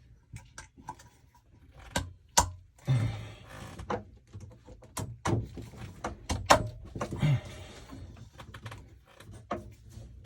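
Sharp clicks, knocks and scraping as metal plumbing parts and tools are handled while a push-to-connect SharkBite fitting goes onto copper pipe. There are about a dozen knocks, the loudest two close together about two seconds in and another pair around five to six and a half seconds.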